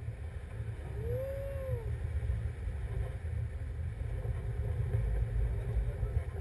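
Wind buffeting the camera's microphone in flight under a tandem paraglider, a steady low rumbling rush. About a second in, a brief rising-then-falling tone sounds over it.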